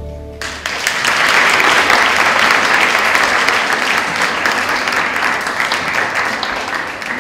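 The last note of the dance music fades out at the very start, then an audience applauds steadily, dying down a little near the end.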